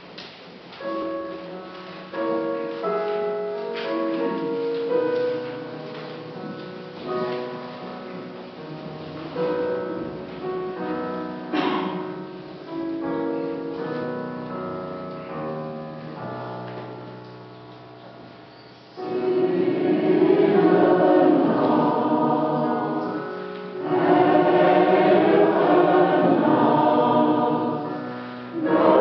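A mixed church choir with electric keyboard accompaniment. A soft opening of separate held notes is followed, about two-thirds of the way through, by the full choir coming in much louder.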